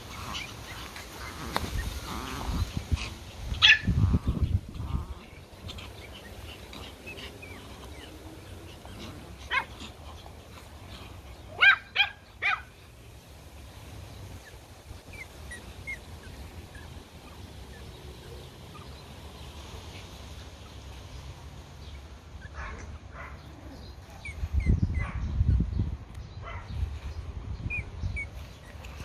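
Pomeranians yapping in short, high, sharp barks: a few about four seconds in, one near ten seconds and a loud burst of two or three about twelve seconds in. A low rumble rises around the 25-second mark.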